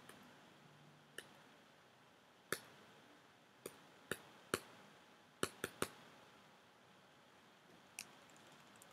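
Computer mouse clicking: about nine short, sharp single clicks at irregular intervals, three of them in quick succession a little past the middle, over faint room tone.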